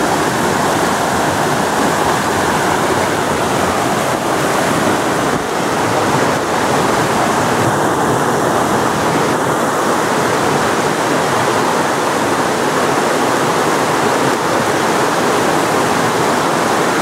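Stream water rushing over rock ledges and small cascades close by: a loud, steady rush of water.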